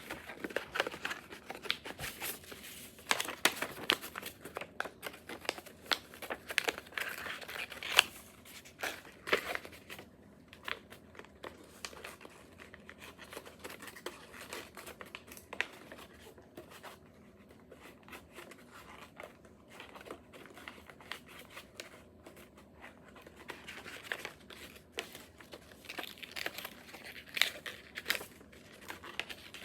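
Sheet of printer paper being folded and creased by hand: irregular rustling and crinkling with sharp crackles, busiest in the first several seconds and again near the end.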